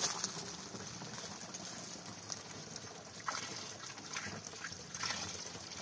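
Faint trickle of milk running into a container as a water buffalo is milked by hand, with a few soft knocks.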